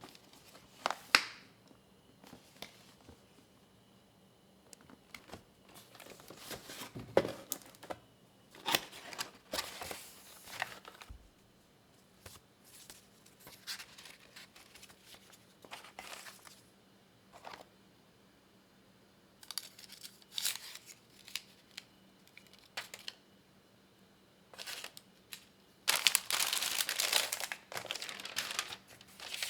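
Packaging of a keyboard box being opened and handled: plastic and paper crinkling and tearing in irregular bursts, with a few sharp clicks and knocks. The longest, loudest stretch of crinkling comes near the end.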